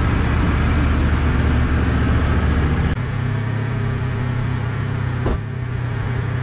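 Wood-Mizer LT15 bandsaw mill's engine running steadily, then dropping abruptly to a lower, quieter idle about three seconds in as the cut ends. A single short knock about five seconds in.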